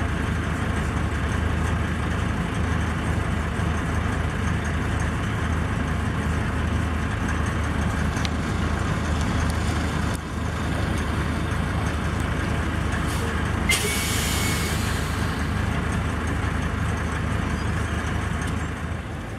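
Heavy diesel engine of a Peterbilt semi tractor running steadily at idle. About two-thirds of the way through, its air brakes let out a burst of hissing air lasting about a second.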